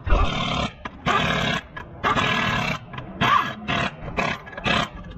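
Pneumatic impact wrench running lug nuts onto a wheel in about eight short bursts, one after another, the later bursts shorter as the nuts seat.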